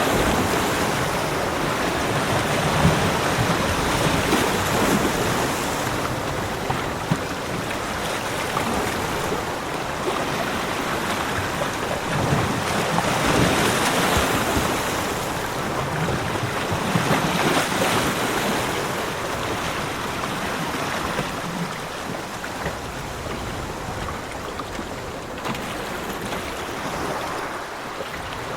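Ocean surf on a beach: waves breaking and washing in, the sound swelling and easing every few seconds over a constant wash of water.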